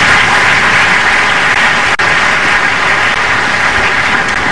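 Audience applauding steadily: a dense clapping of many hands.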